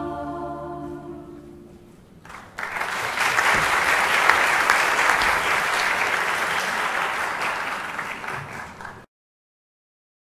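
A mixed choir's final held chord fading away over about two seconds, then audience applause starting suddenly and running steadily for about six seconds before it stops abruptly.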